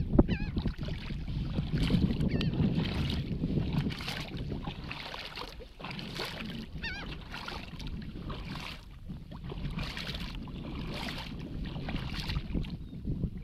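Small boat running over shallow water: a low rumble with wind on the microphone and irregular water splashing at the hull, louder in the first few seconds. Birds give two short warbling calls, one near the start and one about seven seconds in.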